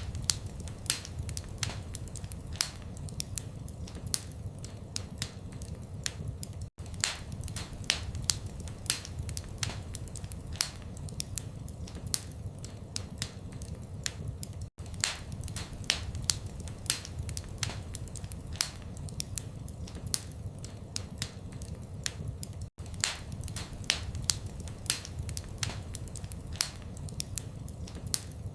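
Wood fire in a fireplace crackling: a steady stream of irregular sharp snaps and pops over a low rumble of burning. A very brief dropout comes about every eight seconds.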